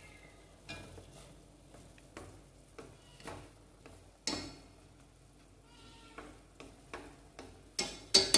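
Wooden chopsticks stirring instant noodles in a stainless steel pot, tapping and scraping against the metal in irregular clicks, the loudest knocks near the end.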